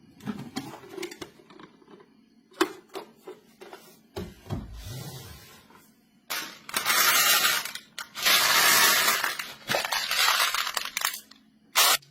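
Marbles clicking against a plastic block track and toy vehicles: scattered single clicks at first, then from about six seconds in, three long stretches of dense rattling as many marbles pour and roll at once, with one sharp click near the end.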